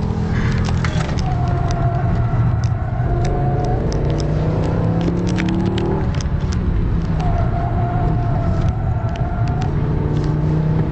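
BMW M5's 5.0-litre V10 (S85) engine working hard on a track lap, heard from inside the cabin, its pitch rising and falling as the car accelerates and slows between corners.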